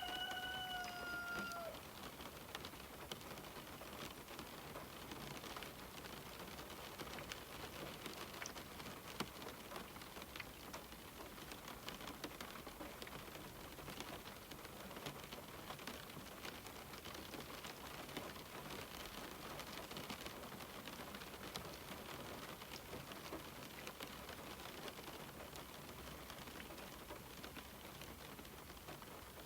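Steady rain falling on a window, an even hiss with scattered faint drop ticks. At the very start, one drawn-out, slightly falling bird call sounds over the rain for about a second and a half.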